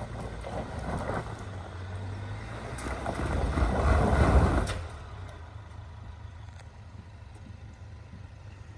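The 2.3-litre EcoBoost four-cylinder of a 2019 Ford Ranger works under load up a loose rock slope while its tyres slip and scrabble on the stones. The engine and tyre noise swell to their loudest about three to four and a half seconds in, then drop back suddenly to a lower drone.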